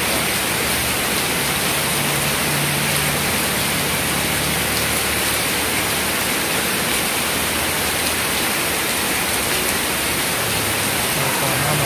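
Heavy rain pouring steadily onto a wet paved road and puddles, an even, unbroken hiss.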